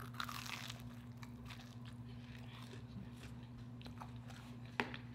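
A bite into a fried cheesecake bite with a crunch at the start, then close-up chewing with faint scattered mouth clicks and one sharper click near the end.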